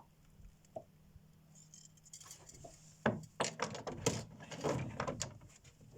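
Light clattering and clinking of small hard objects being handled, a quick run of clicks and knocks starting about three seconds in, over a faint steady low hum.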